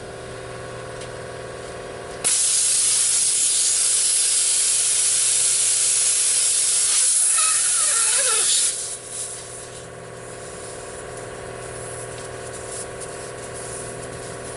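Compressed air hissing loudly at a truck tire's open valve stem while the valve core is fitted; the hiss starts suddenly about two seconds in and cuts off abruptly about six seconds later, with a short squeal just before it stops. A steady engine hum runs underneath.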